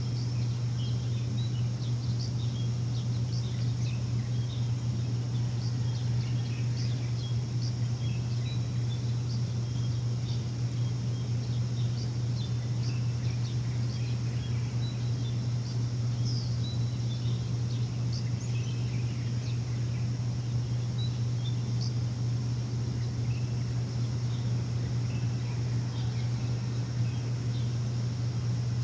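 A machine's steady low hum, the loudest sound throughout, with small birds chirping in short, frequent calls over it.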